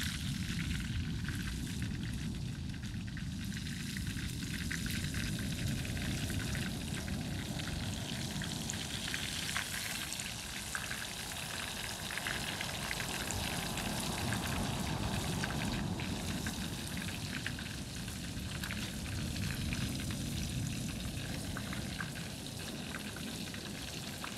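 Whole chicken frying in hot oil in a pan: a steady sizzle with many small scattered crackles.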